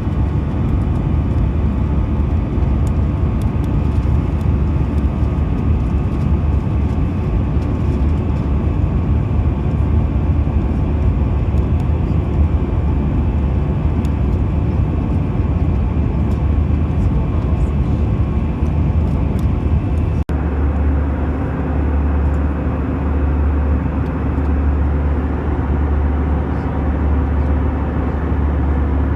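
Steady engine and airflow noise of an Airbus A320 heard from inside the cabin, a constant low rumble with a faint hum. About two-thirds of the way through it breaks off abruptly and resumes with a slightly different, steadier drone.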